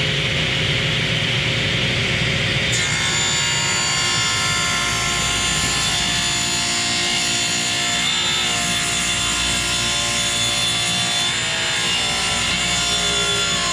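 Table saw cutting a wooden board, the blade sounding as a steady whine over noise; from about three seconds in the sound gains several steady ringing tones as the blade works through the wood.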